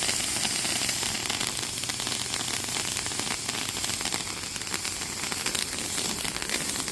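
TNT Wicked Wand hand-held firework fountain burning, a steady high hiss of its spray of coloured sparks with fine crackling throughout.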